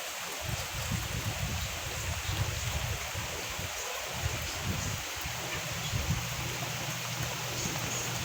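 Hurricane wind and rain: a steady hiss of rain and rushing water, with uneven gusts of wind rumbling on the microphone.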